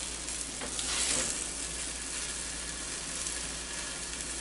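Fried eggs sizzling steadily on a Blackstone 17-inch electric griddle, with a metal spatula scraping across the non-stick plate about a second in as an egg is lifted off.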